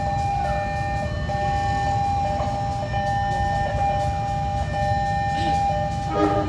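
Diesel-electric locomotive engine running with a steady low rumble during shunting, with background music holding long steady notes over it.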